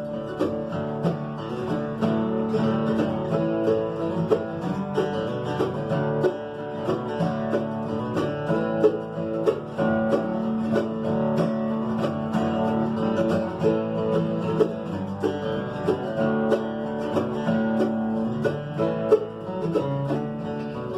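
Instrumental break of a bluegrass song: acoustic guitar and banjo picking over a steady rhythm.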